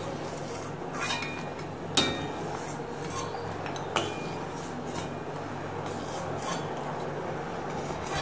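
Perforated steel ladle clinking against a stainless steel kadai and bowl a few times, about one, two and four seconds in, as cooked rice dumplings are scooped out of boiling water. A steady low hum runs underneath.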